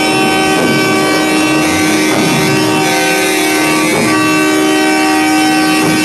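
Many semi-truck air horns sounding together at once, a loud, unbroken chord of steady tones.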